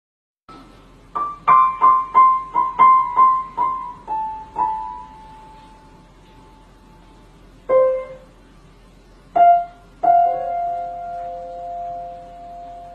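A cat pawing at piano keys: a quick, uneven run of about ten repeated high notes on one or two keys, then a couple of single lower notes, and about ten seconds in two notes struck together and left ringing.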